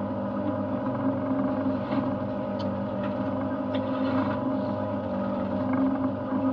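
Yamaha outboard motor of a small lobster boat running steadily, a constant engine hum with no change in pitch, with a few faint clicks over it.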